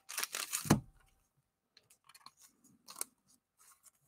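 Plastic card sleeve and trading card being handled: a short crinkly plastic swish in the first second as a card is slid into a sleeve, then faint taps and clicks of cards being handled.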